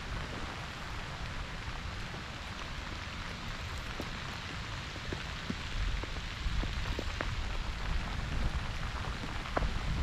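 Pouring rain falling steadily as an even hiss. From about halfway it gets louder, with scattered sharp ticks and low rumbles.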